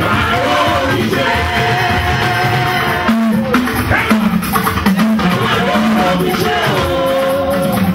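Live band music with singing over drums and guitar, in a steady beat.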